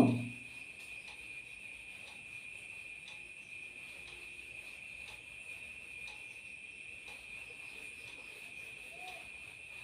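Steady, high-pitched drone of crickets, with faint scratching of a marker on a whiteboard.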